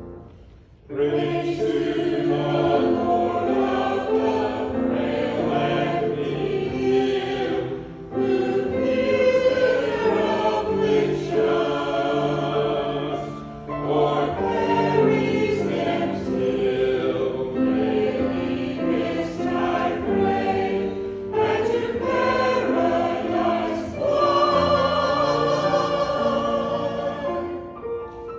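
A choir singing a hymn with accompaniment, in phrases that begin about a second in and die away near the end.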